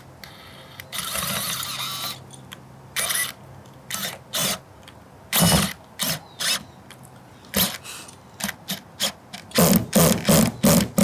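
Cordless DeWalt screw gun driving fasteners through a rubber pipe boot's flange into a standing-seam metal roof panel, in short runs with sharp clicks between, ending in a row of quick, evenly spaced bursts as a screw is seated.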